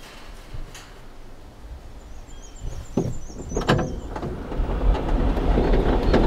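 Metal pipe farm gate being swung by hand: its hinge squeaks in a thin, wavering, high note, and the gate clanks twice, about three seconds in and again under a second later. A rising rush of noise builds over the last couple of seconds.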